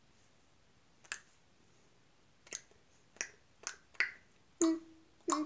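Sharp single clicks, about six of them, coming at uneven intervals a half second to a second apart, made close to the microphone.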